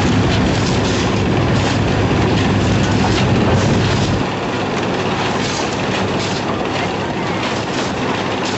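Steady, loud machine noise with a heavy low rumble that drops away about four seconds in.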